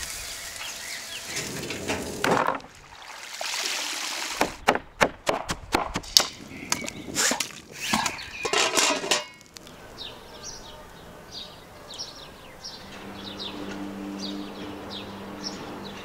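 A quick succession of outdoor cooking sounds: a steady hiss, then a run of sharp knocks and metal clinks like utensils on a pot and grill. After that it goes quieter, with short repeated bird chirps and a low hum near the end.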